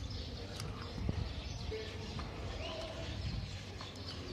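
Open-air ambience: a steady low wind rumble on the microphone with birds chirping, and a few faint sharp knocks.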